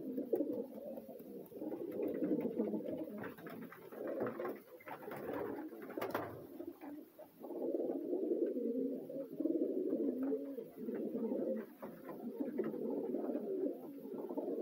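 A loft full of racing pigeons cooing continuously, many birds overlapping in a low warbling murmur, with a brief sharp click about six seconds in.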